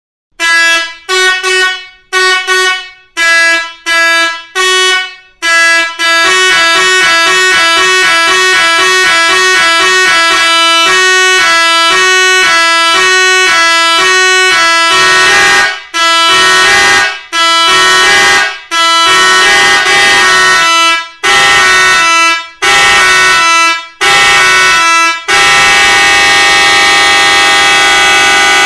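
Three-trumpet electronic melody air horn running on compressed air and playing its preset tunes. It starts with short repeated two-note blasts, then moves to fast runs of notes, and ends with longer held notes.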